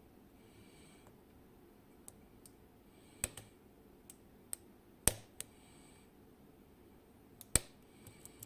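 Lock pick working the pins of a Kaba Gemini Plus cylinder under tension: scattered light metallic clicks and taps, with two sharper clicks about five seconds in and near the end, and a faint scrape between them.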